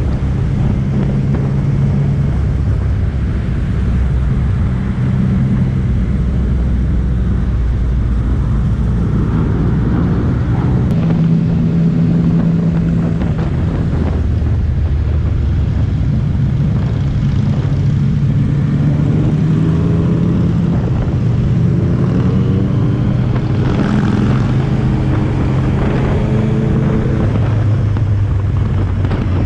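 Yamaha MT-09's three-cylinder engine running at riding speed among a pack of other motorcycles. Several engine notes overlap, their pitch shifting in steps every few seconds with throttle and gear changes, over a steady rush of wind and road noise.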